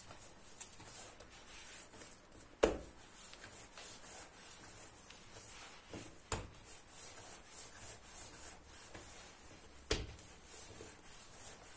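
Pizza dough being kneaded by hand on a granite countertop: faint rubbing and pressing, broken by three thumps a few seconds apart as the dough is pushed down onto the counter.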